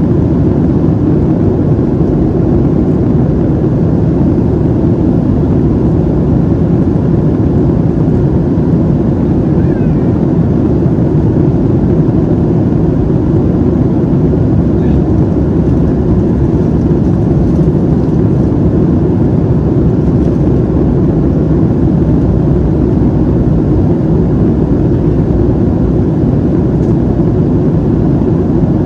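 Steady low drone inside the cabin of a Boeing 737-700 in flight: engine and airflow noise, unchanging throughout.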